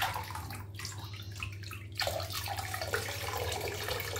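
Bath water stirred by a hand reaching to the bottom of the tub, then from about two seconds in a steady trickle of water pouring back into the bath from a lifted handful.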